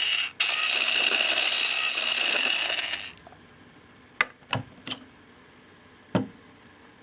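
FinaMill battery-operated pepper mill's motor running with a high whir. It stops for a moment just after the start, then runs on until it cuts off about three seconds in. A few light clicks and knocks of the plastic mill being handled follow.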